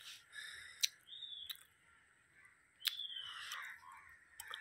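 A few short, high, falling bird chirps, with scattered sharp clicks between them.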